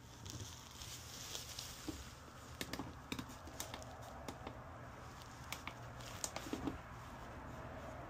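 Faint scattered clicks and taps of test probes on a circuit board and button presses on a bench meter, over a low steady hum.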